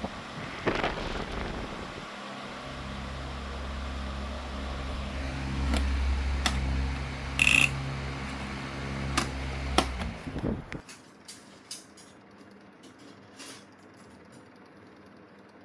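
A 2001-model electric fan running with a steady motor hum and several sharp clicks, the loudest just past the middle; about eleven seconds in the hum cuts off suddenly, leaving only faint scattered clicks.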